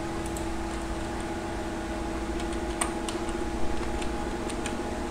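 Computer keyboard keys clicking faintly and sparsely as a password is typed, over a steady machine hum with a few steady tones.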